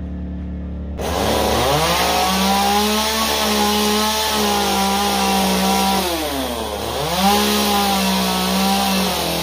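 Chainsaw starting about a second in and revving up to full speed, holding steady, then dropping off briefly about two-thirds of the way through before revving up again and easing off near the end.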